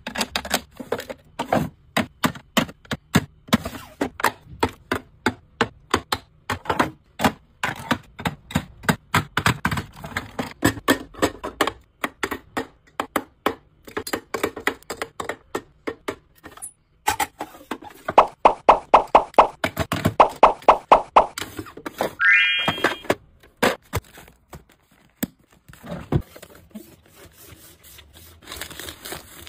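Cosmetic jars, compacts and lipsticks being set down and slotted into an acrylic organizer: a long run of light plastic taps, clicks and knocks, with a quick burst of clicks about two-thirds of the way through.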